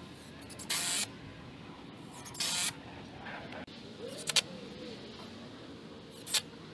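Cordless drill driving screws into wood framing in two short bursts about a second and a half apart, followed later by a few sharp clicks.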